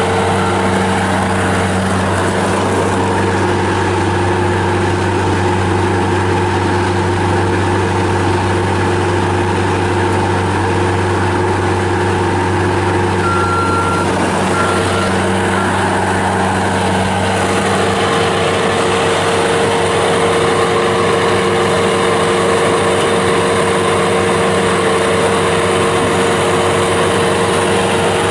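Bobcat S205 skid steer loader's Kubota V2607 four-cylinder diesel engine running steadily at an even speed.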